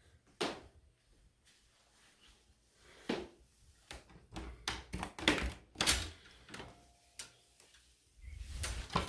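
A series of knocks and clunks, like a door or objects being handled, sparse at first and loudest and closest together about four to six seconds in.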